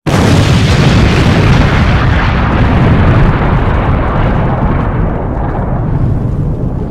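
Explosion-like sound effect of a logo animation: a sudden loud boom with a rush of hiss and a deep rumble under it, the hiss slowly fading. A fresh burst starts right at the end.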